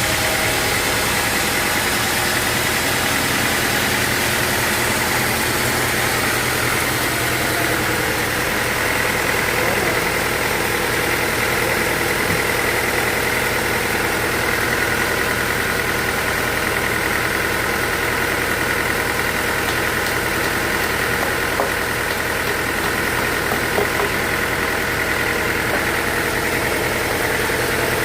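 Sawmill machinery running steadily: a constant mechanical drone with a high whine on top, and a couple of small knocks in the last third.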